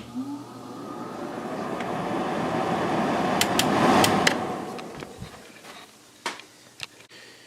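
Hotpoint 8400 BTU window air conditioner's GE fan motor starting up: the blower's air rush swells steadily for about four seconds. Then a few sharp switch clicks, and the fan winds down and fades away over the next second or so.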